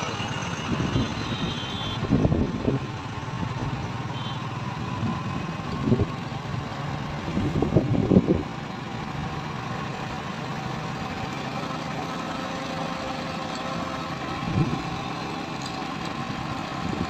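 Engine hum and road noise from a vehicle moving slowly along a highway, steady throughout, with several brief, louder low rumbles.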